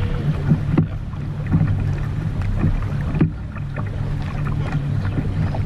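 Small boat's outboard motor running steadily while under way, with wind and water noise over it.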